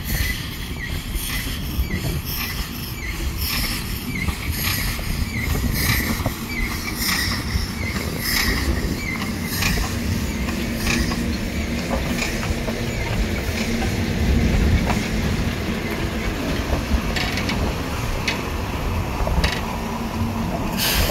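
A Sentinel 0-6-0 diesel shunter running slowly while hauling a brake van and a saddle-tank steam locomotive. The engine's steady drone grows in the second half, over repeated clicks and short squeals from the wheels on the rails.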